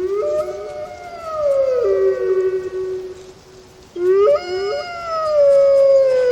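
Two gray wolves howling together, their howls overlapping: one higher howl sliding downward over a lower one that holds a steady pitch. They break off just before four seconds in, then start again.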